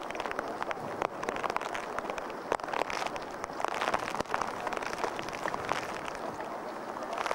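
Rain falling, an even hiss with many scattered drips and taps.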